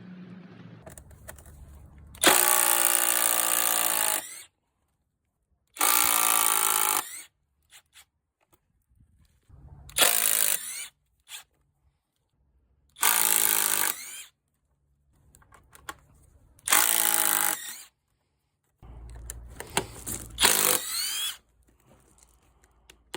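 Hercules brushless cordless impact driver run in about six bursts of one to two seconds each, with short pauses between; the last burst is rougher, with the pitch rising as the motor spins up.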